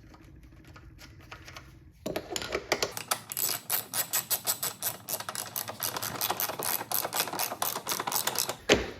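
Socket ratchet clicking rapidly as the mower's wheel nut is run on and tightened, a dense run of sharp clicks starting about two seconds in, with one loud metallic knock near the end.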